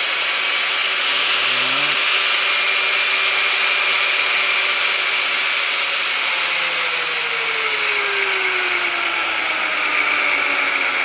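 Angle grinder motor running on a homemade speed controller, a steady high whine; from about halfway through its pitch slides slowly down as the controller knob turns the speed down.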